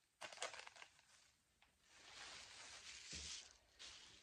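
Faint rustling and crinkling of wrapping and a bag being handled, with a few light clicks about half a second in.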